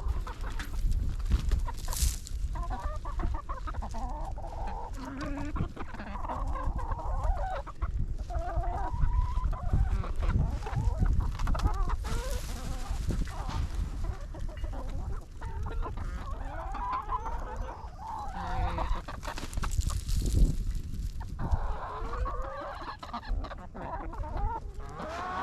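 A flock of chickens clucking, many overlapping calls throughout, as they are fed sunflower seeds.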